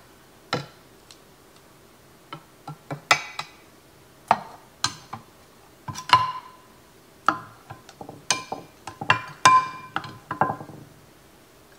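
A metal ladle clinking and tapping against a pot and against glass and ceramic baking dishes as sauce is ladled out. The sharp clinks come irregularly, about a dozen and a half, and a few ring briefly.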